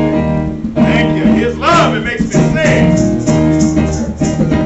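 Gospel music played loud on guitar with a steady beat, starting again right after a brief drop in level. About a second and a half in, a held note wavers with vibrato.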